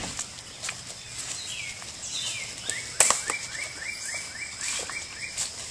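Footsteps crunching through leaf litter and twigs, with a sharp snap about three seconds in. Behind them a songbird sings: a couple of falling whistles, then a quick run of about nine short rising notes.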